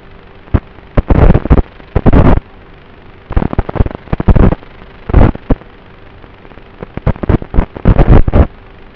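Onboard audio of a flying FPV wing: a steady hiss with a faint steady hum. This is broken by loud, clipped rushes of noise that come in irregular clusters about a second in, around three to four and a half seconds, and again near the end.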